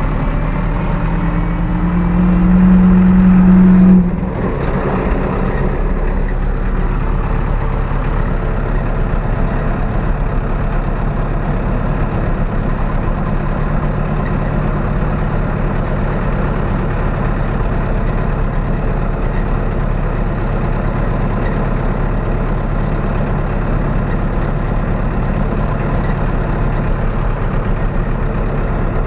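Zetor 6745 tractor's diesel engine running under load: its pitch climbs and grows louder for the first few seconds, drops off suddenly about four seconds in, then holds a steady run.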